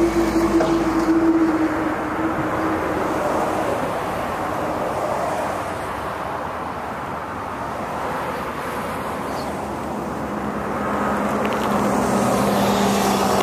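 Road traffic going by: one vehicle passes in the first few seconds, and another approaches, growing louder, near the end.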